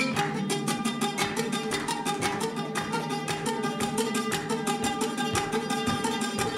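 Oud played fast, a continuous run of quickly repeated plucked notes at many strokes a second.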